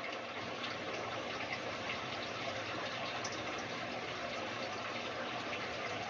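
Aquarium filter outflow pouring into a fish tank, splashing and bubbling steadily on the water surface.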